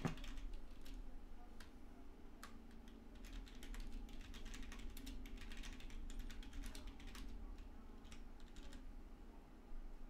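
Typing on a computer keyboard: irregular key clicks in quick clusters that stop shortly before the end, over a low steady hum.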